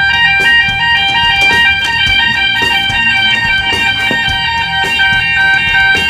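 Fire alarm sounder set off from a manual call point, giving a loud electronic two-tone warble that alternates between two pitches several times a second. Guitar music plays underneath.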